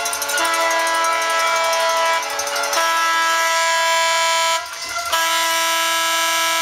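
A fan's handheld horn sounding long, steady, loud blasts on one held pitch, broken by short gaps near the start and about halfway through, and by a longer gap about three-quarters of the way through.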